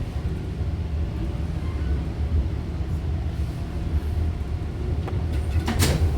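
Toronto subway train running, heard inside the car as a steady low rumble, with one sharp metallic clank near the end.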